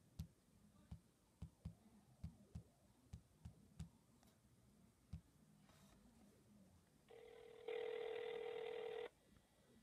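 Fingertip taps on an iPhone's touchscreen dial pad, about ten quick taps over the first five seconds as a number is keyed in and the call button pressed. Then a phone ringback tone rings once for about two seconds through the phone's speaker, the outgoing call ringing at the other end.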